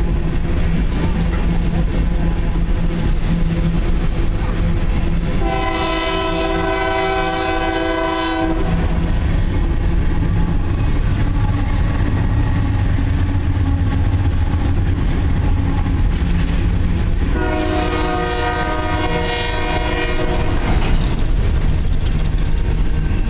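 Coal train hopper cars rolling past close by, a steady low rumble, while a second train's diesel locomotive horn sounds two long blasts of several notes at once, about five seconds in and again about seventeen seconds in.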